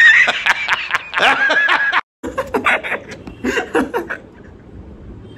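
Hearty laughter in rapid, choppy bursts, loudest in the first two seconds, cutting out for a moment about two seconds in, then coming back in shorter bursts that fade toward the end.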